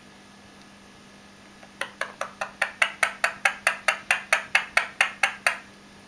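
An Indian ringneck parakeet making a rapid, even run of sharp clicks, about five a second for nearly four seconds, starting about two seconds in.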